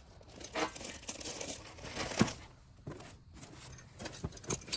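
Crinkling and rustling of plastic and cardboard packaging as a new A/C condenser is handled, with a few short knocks near the end.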